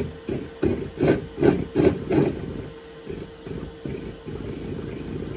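E-bike mid-drive motor spinning on the bench, powered by a new controller, with a steady whine. For the first two seconds or so it pulses about three times a second, then from about four seconds in it runs evenly.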